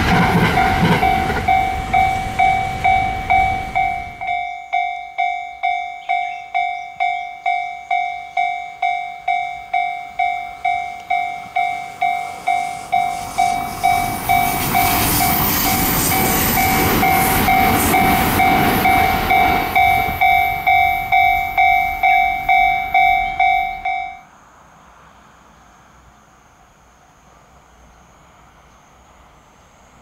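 Japanese level-crossing alarm dinging at about two strikes a second, over the noise of a train passing the crossing at first and another train running by in the middle. The alarm and train noise cut off suddenly about 24 s in, leaving only a faint steady high hiss.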